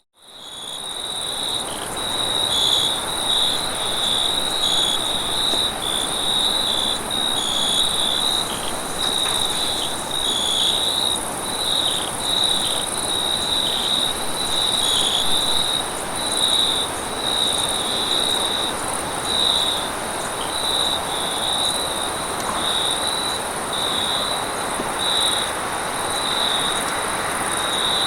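Night-time chorus of crickets and other insects: a steady, pulsing high trill with a thinner, even higher buzz above it, over a soft background hiss. It drops out for an instant at the start and fades back in over about two seconds.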